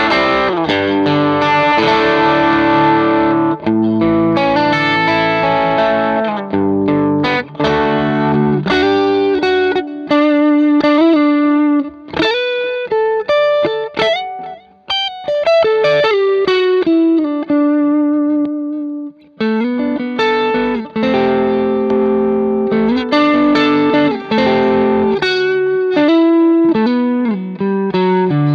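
Fender Stratocaster electric guitar played through an engaged JHS Whitey Tighty compressor pedal into a Vox AC30 amp. It plays strummed chords, then single-note lines in the middle, then chords again.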